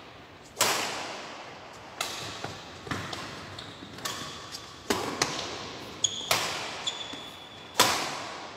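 Badminton rally: rackets striking the shuttlecock, about six sharp cracks a second or more apart, each ringing out in a large hall. Short high squeaks of shoes on the court floor come in near the end.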